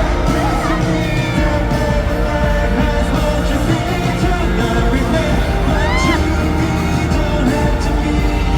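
Live pop song with singing over a concert sound system, loud and steady throughout.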